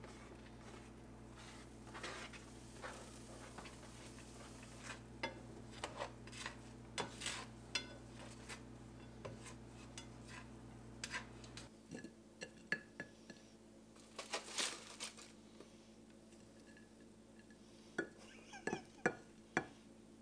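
Clatter of a plastic spatula knocking and scraping in a nonstick frying pan, then clinking on a ceramic plate as food is dished up: scattered sharp taps throughout. A steady low hum underneath stops suddenly about two-thirds of the way through.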